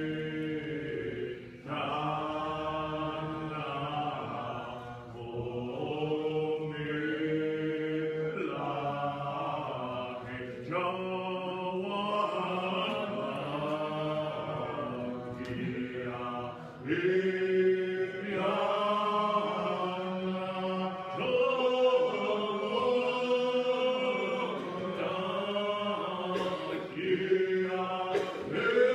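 Congregation singing a Muscogee Creek language hymn in several voices, in slow sung phrases separated by short breaths.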